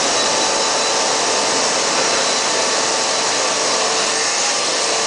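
Steady rush of air with a few faint steady tones in it, clearing metal filings and chips out of a Ford 460 cylinder head's port after its valve seat has been cut.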